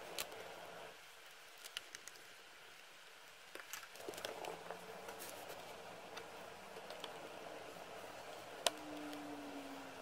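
Faint scattered clicks and taps of a small screwdriver and parts being handled on a laptop's base panel, over a steady low hiss. A sharper click comes near the end, followed by a brief low hum.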